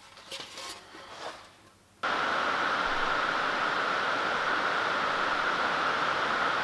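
Faint rubbing and handling sounds, then a steady, even hiss that cuts in abruptly about two seconds in and holds level.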